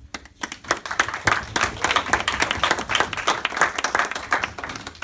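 A small audience clapping hands in applause. It starts just after the opening, holds steady, and thins out near the end.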